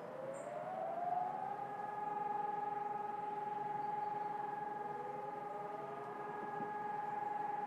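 Distant HELIN electronic civil-defence sirens sounding a test alarm. One siren rises in pitch and settles on a steady tone about a second and a half in, over a lower steady tone, and a second siren's rising tone joins about five seconds in.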